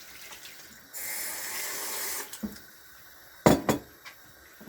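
Water pouring off for about a second as hot cooked fish is drained, then two quick knocks of kitchenware about halfway through.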